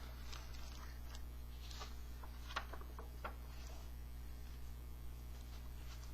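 Quiet room tone with a steady low electrical hum, broken by a few faint rustles and light ticks.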